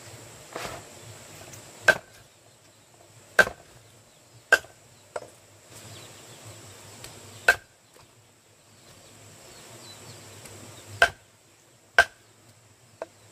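Chopping: about eight sharp, separate strikes at an uneven pace, one to three and a half seconds apart, with a long pause in the middle.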